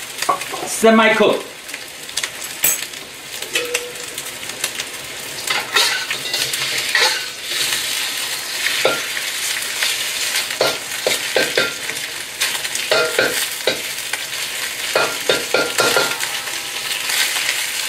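Sliced beef sizzling in hot oil in a wok, stir-fried to semi-cooked. A metal wok spatula scrapes and clacks against the pan again and again.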